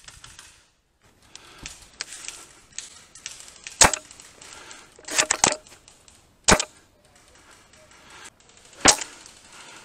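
Airsoft guns firing: a sharp single crack about four seconds in, a quick burst of three or four shots a second later, then single shots near six and a half and nine seconds.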